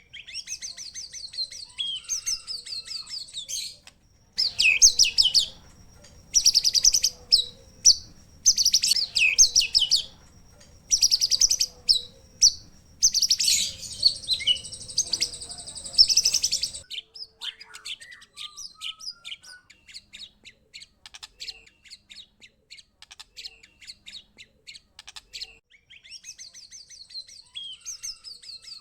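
Songbirds singing in fast, varied whistled and chattering phrases. From about four to seventeen seconds the song comes in loud bursts over a low background hum. It then gives way to quieter rapid chips and trills, and loud song returns near the end.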